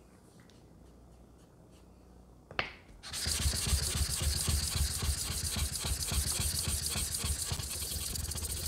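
Atoma 400 diamond plate rubbed back and forth over a wet Black Shadow sharpening stone to lap it flat. The gritty rasping comes in quick rhythmic strokes and starts about three seconds in, just after a single knock.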